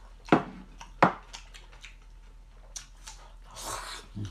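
Tableware being handled at a meal: a noodle bowl and chopsticks knock sharply twice, about a third of a second and a second in, followed by small clicks, a short rustle near the end and a dull knock as things come to rest on the wooden table.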